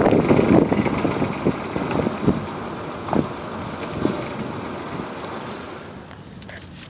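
Mercedes-Benz W210 on the move, its road and wind noise fading steadily, with a handful of separate knocks from the rattle being recorded.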